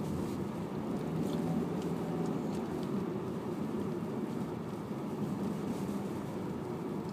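Steady low hum of a car's engine and road noise, heard from inside the cabin of the moving car.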